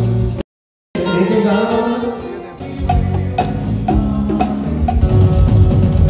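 Live band rehearsing on stage. A held electronic keyboard chord cuts off abruptly, and after a brief gap the band plays on with keyboard and voice. Drum-kit hits come in about three seconds in and the sound builds.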